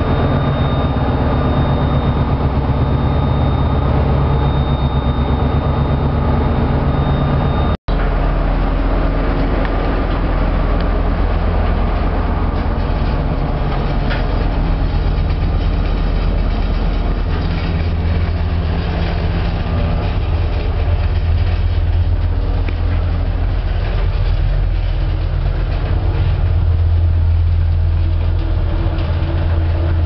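Steady low rumble inside a Techwind passenger lift car aboard a car ferry: the lift travelling, with the ship's engines running beneath. A thin high whine runs through the first eight seconds, then the sound drops out for an instant.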